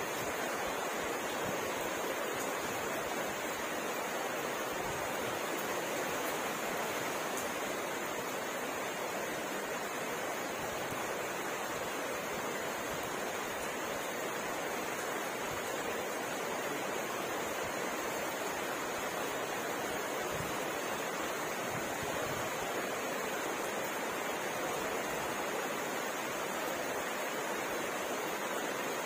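Steady rain falling, an even hiss with no breaks, with a steady high-pitched band of sound above it.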